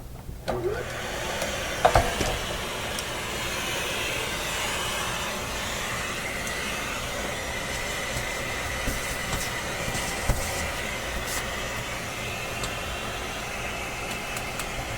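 Vacuum cleaner switched on about half a second in and running steadily with a faint whine as it sucks dust off an old radio chassis, with a couple of short knocks along the way.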